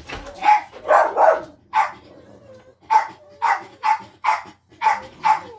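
Dog barking in a rapid series, about two barks a second, with a short break about two seconds in: alert barking at something outside.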